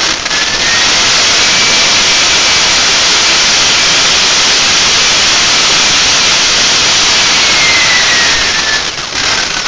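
Kingtech K80E model jet turbine spooling up to high speed, holding a loud, steady whine over a rushing roar. Near the end it is throttled back and the whine falls in pitch.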